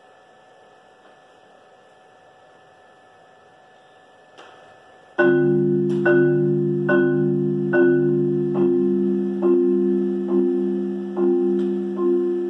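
Solo marimba played with four mallets: a few seconds of quiet room hum, then about five seconds in the notes begin, struck at an even, unhurried pace a little under once a second, with the low notes ringing on between strikes.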